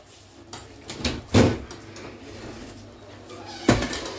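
Metal pots and a serving spoon knocking and clanking as meat is scooped out of one pot into a large aluminium stew pot: a few scattered knocks, the two loudest about a second and a half in and near the end.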